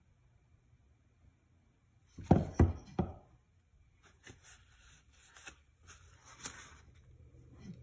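Three quick, sharp knocks of wood on a wooden workbench about two seconds in, then softer rustling and crinkling of a paper sheet being handled.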